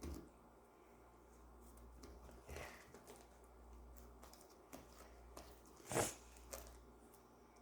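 Hands handling slime: faint scattered clicks and rustles, with one louder click about six seconds in.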